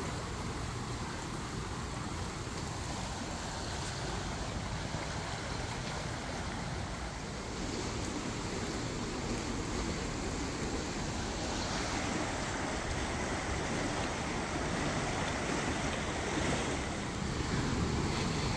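Steady rushing outdoor noise, an even hiss and rumble with no distinct events, growing slightly louder in the second half.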